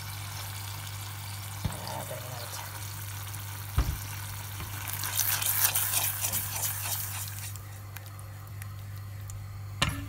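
Minced meat and tomato sauce sizzling in a steel saucepan while being stirred, with a few sharp knocks of the utensil against the pan. The crackle grows louder for a couple of seconds in the middle, over a steady low hum.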